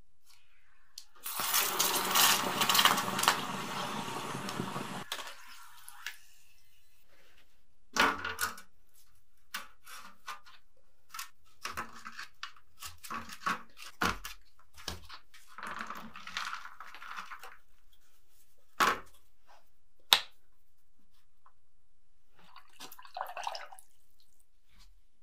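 Hot perforated casting flask plunged into water, sizzling and bubbling loudly for about four seconds as the investment plaster is quenched and breaks up. This is followed by scattered knocks, scraping and crumbling as the wet plaster is broken out of the steel flask.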